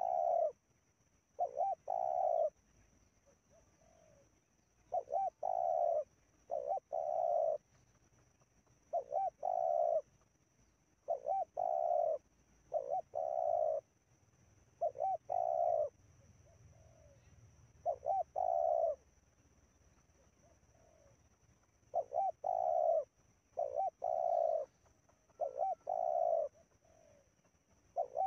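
Spotted dove cooing: short notes followed by a longer coo, the phrase repeated about every two seconds with a few longer pauses.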